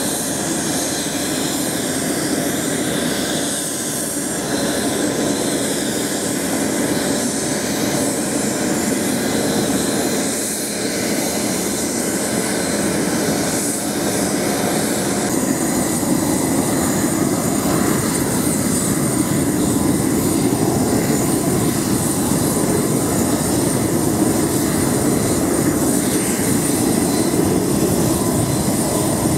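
Boeing 737-500's CFM56 jet engines running: a steady high whine over a rushing rumble, the rumble growing a little louder about halfway through.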